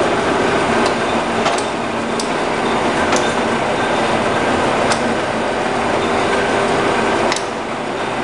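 A 163 (DIP300) heavy centre lathe running: a steady mechanical whirr from the spindle and headstock gears, with a few short sharp clicks scattered through it.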